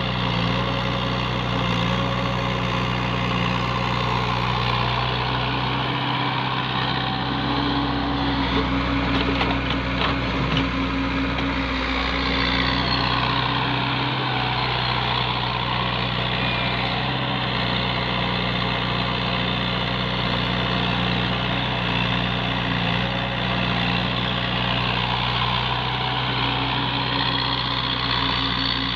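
Mini excavator engine running steadily under work, with a higher whine that bends in pitch about midway and a few light clanks around ten seconds in.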